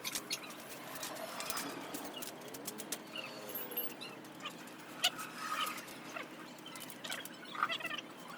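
Scattered light clicks and taps, with faint bird calls in the background.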